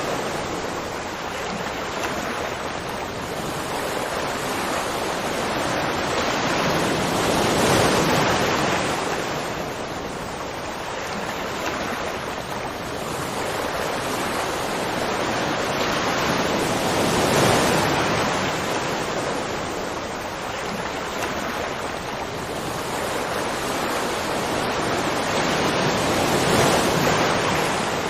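Continuous rushing water noise that swells and eases in slow cycles, peaking about every nine seconds.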